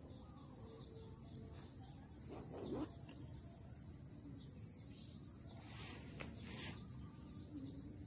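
Faint outdoor ambience: a steady high insect trill, with brief soft rustles of grass and cloth as the trap is handled, the most noticeable just before three seconds in and again around six seconds.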